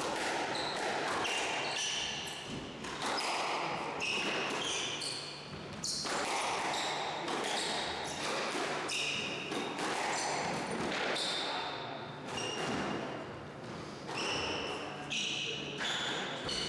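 Squash rally: the ball cracks off rackets and walls again and again. Court shoes give short high squeaks on the wooden floor as the players change direction.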